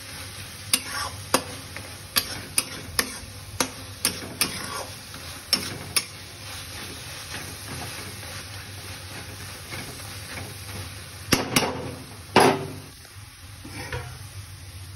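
A spatula stirring frying onions, tomatoes and capsicum in a metal karahi, knocking and scraping against the pan over a steady sizzle. The knocks come quickly through the first six seconds, then a few louder ones come around twelve seconds in.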